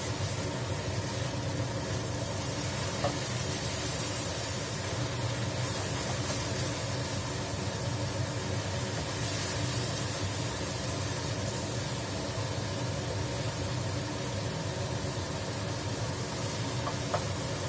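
Tofu frying in oil in an open frying pan, under a steady hum and hiss, with a couple of light clicks of the spatula against the pan, about three seconds in and near the end.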